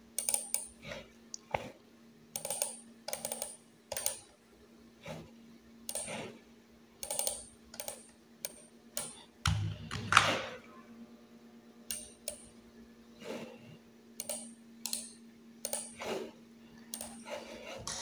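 Irregular clicks and taps of a computer keyboard and mouse, with one louder thump about halfway through and a faint steady hum underneath.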